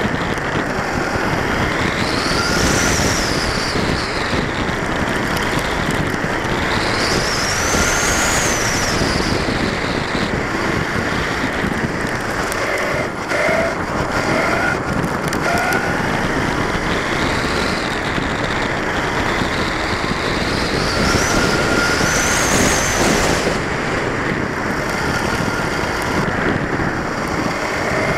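Onboard sound of a 1/10-scale 4x4 short-course RC truck lapping an asphalt track. Its electric motor and drivetrain whine climbs in pitch and falls away again with each burst of speed, several times over. Underneath runs a steady noisy rush of gears and tyres.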